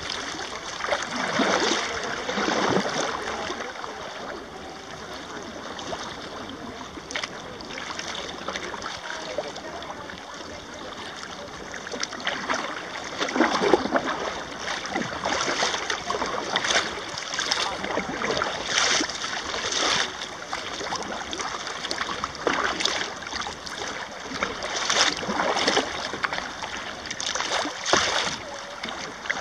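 Choppy water lapping and splashing against a sea kayak's hull as it moves through the chop, swelling in uneven surges every second or few.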